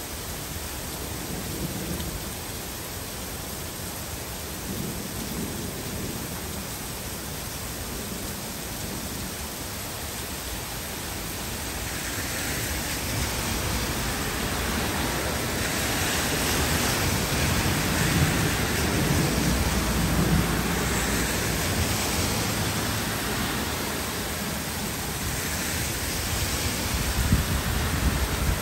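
Heavy rain falling on trees and a wet street as a steady hiss. It grows louder about halfway through, as a car drives by with its tyres swishing on the wet road.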